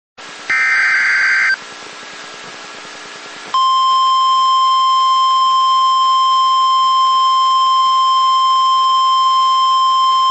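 NOAA Weather Radio emergency alert signal. A hiss of static starts, then about half a second in comes a one-second burst of warbling digital data tones, the SAME header. From about three and a half seconds in, the steady 1050 Hz warning alarm tone sounds without a break, announcing the Special Marine Warning that follows.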